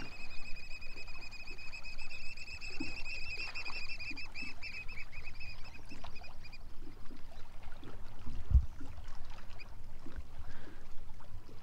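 Black oystercatchers piping: a high, rapidly trilled whistle that goes on without a break and stops about six and a half seconds in. A single low thump follows about two seconds later.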